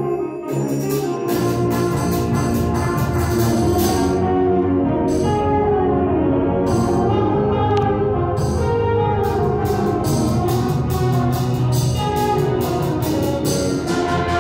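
Concert band of woodwinds, brass and percussion playing, with the brass to the fore. About a second in the low brass and drums come in fully, and repeated percussion strikes grow denser in the second half.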